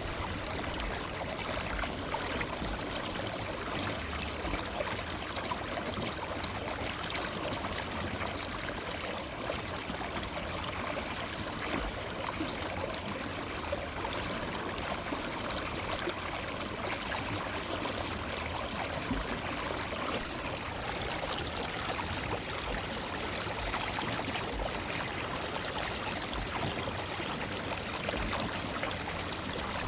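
River water flowing and trickling over rocks in a steady, even rush.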